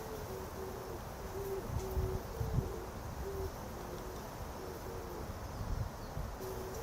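Pigeons cooing: a steady run of short, low coos, with a soft thump about two and a half seconds in.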